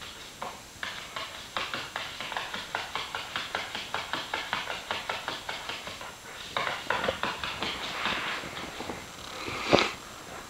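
Soft Wheaten Terrier puppy's claws scratching rapidly at a hardwood floor, as if trying to dig through it, in quick scraping strokes about four a second that get denser about six seconds in. One loud thump near the end.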